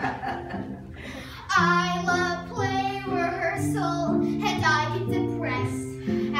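Children singing a show tune over an instrumental backing track with held low notes; after a short gap the voices come in about a second and a half in.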